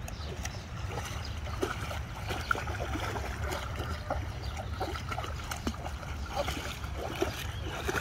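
Alaskan Malamute wading through a shallow river, its legs splashing and sloshing the water in many small, irregular splashes over a steady low rumble.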